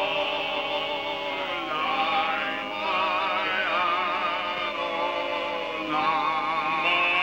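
A voice singing a slow, sustained song with heavy vibrato.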